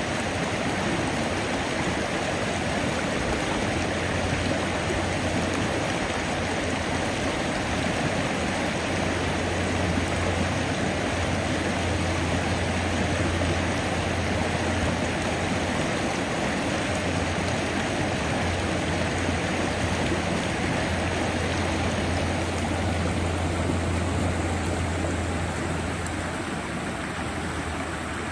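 Stream water flowing steadily, with a steady low hum underneath through most of the stretch.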